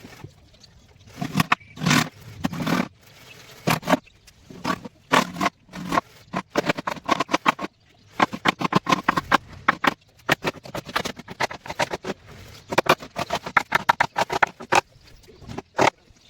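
Hand carving of wood: quick runs of sharp taps, several a second, as a mallet drives a carving chisel into the wood, with a few longer strokes in the first few seconds.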